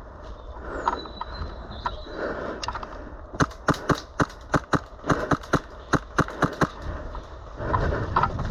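Airsoft gun firing a rapid string of single shots, about fifteen sharp cracks over three seconds, with rustling movement through undergrowth before and after.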